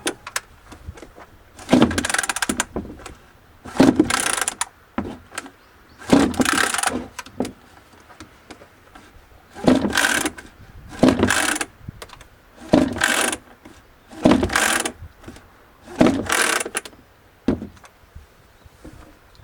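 A Shindaiwa E1027TS two-stroke chainsaw being pull-started about nine times in a row, each pull a short cranking rasp, with the engine never settling into a steady run. This fits the starting trouble common to two-stroke engines.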